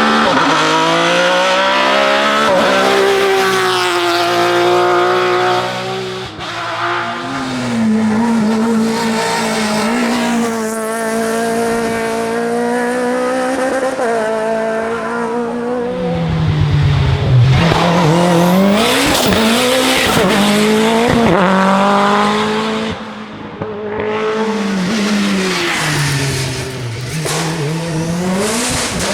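Race car engines at high revs, the pitch climbing through each gear and dropping at each shift and under braking. Several cars are heard in turn, with changes about 6, 16 and 23 seconds in.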